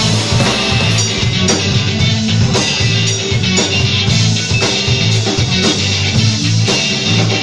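Live rock band playing electric guitars, bass guitar and drum kit, with a steady beat of about two drum hits a second.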